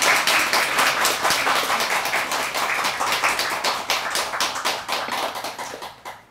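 A small audience clapping in a rapid, uneven patter that dies away near the end.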